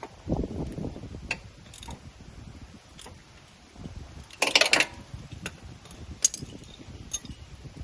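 Hand tools and metal parts clicking and clinking in the engine bay, with low handling thumps at the start and a short, louder rattle about four and a half seconds in.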